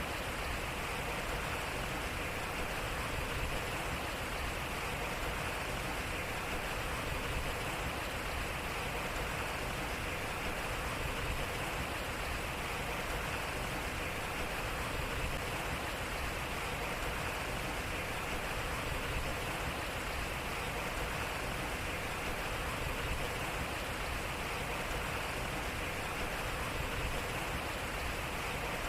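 Water flowing slowly through a turning water wheel: a steady, even rush of water.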